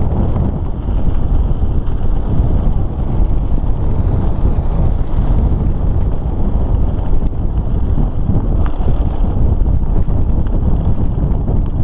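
Wind buffeting the microphone of a camera on a mountain bike in motion, a steady low rumble mixed with the tyres rolling over a gravel road. Once, late on, a short click.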